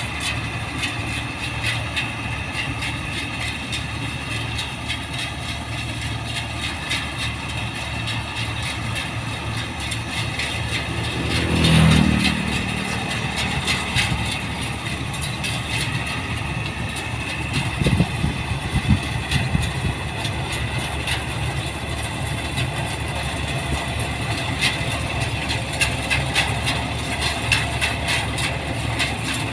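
New Holland 1545 combine harvester running steadily as it cuts rice, its diesel engine and threshing machinery droning with a hiss over it. A brief louder swell comes about two-fifths of the way through, and a few heavy low knocks about two-thirds through.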